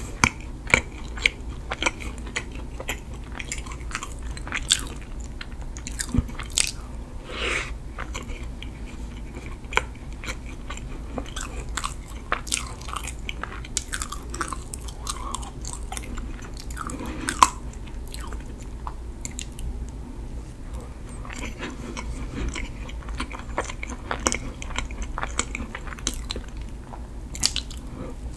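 Close-miked biting and chewing of a chocolate-coated mini sponge cake. The thin dark chocolate shell cracks with sharp clicks, scattered throughout among soft, moist chewing and mouth sounds.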